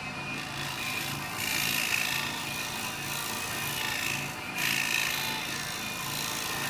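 Gouge cutting the outside of a spinning cherry bowl on a wood lathe: a scraping, shearing cut that comes in about three long passes, swelling and easing off, with music playing in the background.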